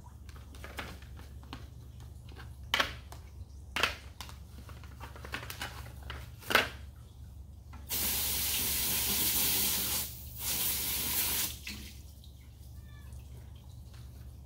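Hose spray nozzle jetting water onto a black foam filter pad from an aquarium canister filter: a steady spray of about two seconds in the second half, a short break, then another second of spray. Earlier come a few short, sharp sounds.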